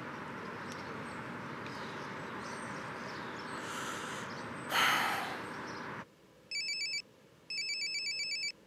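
Steady outdoor background noise with a brief loud rush of noise about five seconds in. Then a mobile phone rings with a trilling electronic ringtone, two rings near the end.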